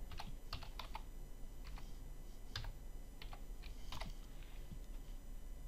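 Faint, irregular clicks of typing: a short file name entered one key at a time, about a dozen keystrokes spread over several seconds.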